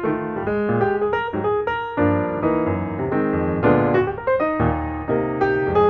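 Background piano music: a quick, busy run of notes over low bass notes.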